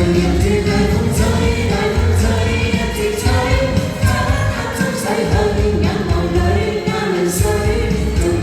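Pop song with singing over a backing track with a steady bass beat.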